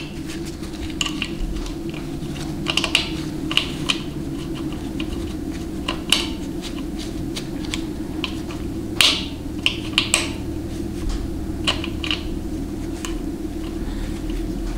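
Scattered small clicks and taps of metal and plastic as the speed sensor is seated in a 700R4 transmission's extension housing and its 10 mm bolt is started by hand, over a steady low hum.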